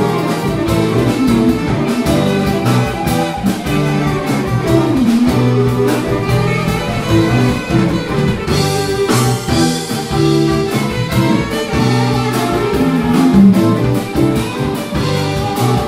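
Live jazz-fusion band playing: a tenor saxophone line over electric guitar, electric bass and drums, continuous and loud.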